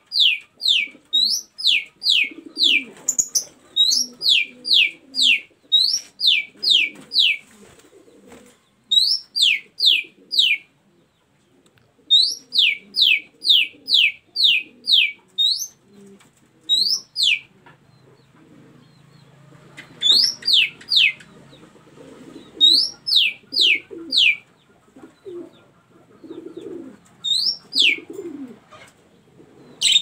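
Female oriental magpie-robin (kacer) calling: runs of three to five loud, sharply falling whistles, some runs led by a short rising note, repeated with pauses of a second or two. It is a female's call to a male.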